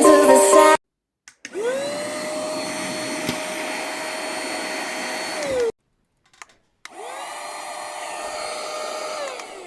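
Portable cordless mini vacuum cleaner switched on twice, with a faint click before each start. Each time the motor whines up to a steady high pitch and runs for a few seconds. The first run cuts off suddenly; the second winds down with a falling whine near the end.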